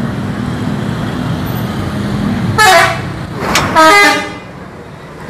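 A coach's engine running steadily, then two loud blasts of a multi-tone bus horn about a second apart.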